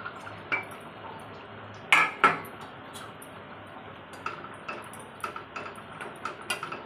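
Steel bowl and spatula clanking against a steel kadai as fried fish pieces are tipped into simmering curry: two sharp clanks about two seconds in, then lighter taps and scrapes of the spatula stirring the pan.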